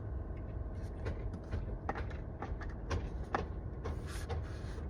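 Scattered light clicks and knocks of hand tools and plastic trim being worked loose on a car's steering wheel, with a short scrape near the end, over a steady low rumble.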